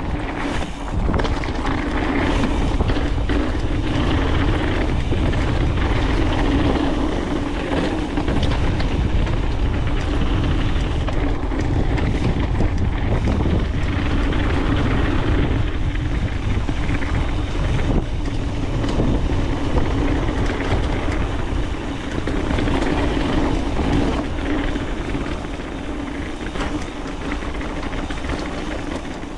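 Mountain bike descending a rough dirt trail: a steady rumble of tyres and wind on the helmet-camera microphone, with scattered knocks and rattles from the bike.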